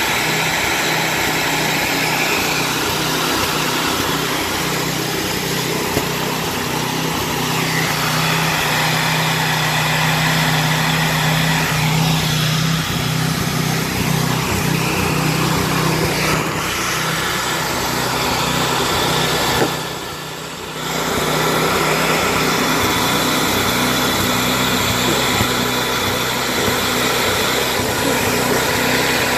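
Handheld hair dryer running steadily, its motor and fan blowing hot air onto an ice-coated truck door to thaw it. About two-thirds of the way through there is a click and the sound drops for about a second, then comes back at the same level.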